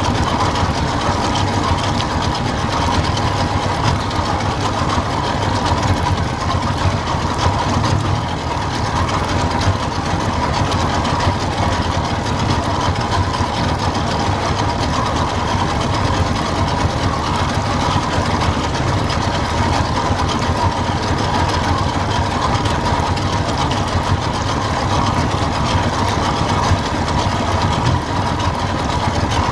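Boat motor running steadily at low trolling speed, an unbroken mechanical drone.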